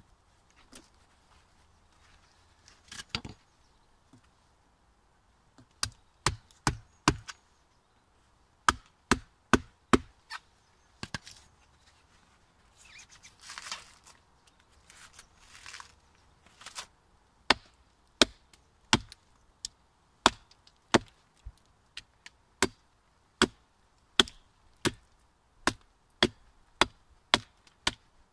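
Small axe chopping into a rotten pine log to shape its side. The strokes come sharp and scattered at first, then settle past halfway into a steady run of a little under two a second.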